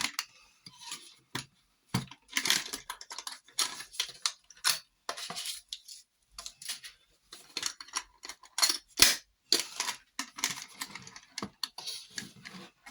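Rustling of packaging with irregular clicks and taps as small items are unwrapped and handled, with a couple of sharper clacks about two and nine seconds in.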